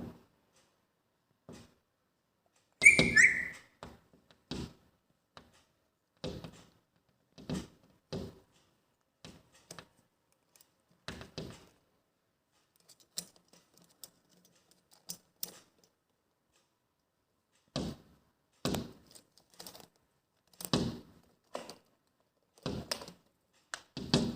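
Pet parrots at play: irregular taps and knocks, with one short high call about three seconds in.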